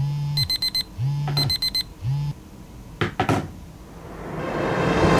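Smartphone alarm going off: quick sets of four high beeps alternating with the phone's vibration buzzing against the wooden surface, stopping after about two seconds. A few sharp knocks follow as the hand reaches the phone, then a swelling noise near the end.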